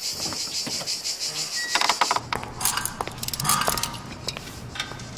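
Light metallic clinks and ticks of hand tools being handled at a workbench, scattered irregularly, after a steady high hiss over the first two seconds.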